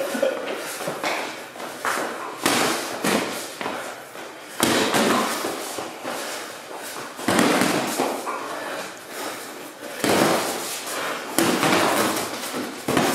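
Boxing gloves landing punches in close sparring: sharp smacks at irregular intervals.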